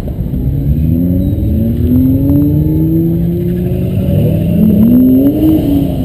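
A car engine accelerating away, its pitch climbing steadily for about three seconds, then a second quicker rev that rises and drops back near the end.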